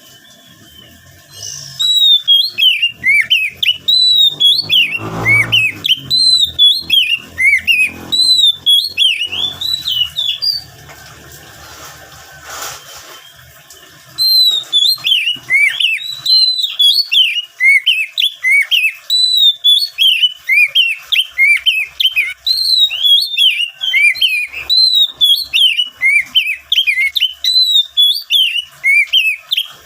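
Oriental magpie-robin (kacer) singing loudly: fast runs of sharp whistled chirps and trills, pausing for a few seconds in the middle before starting again.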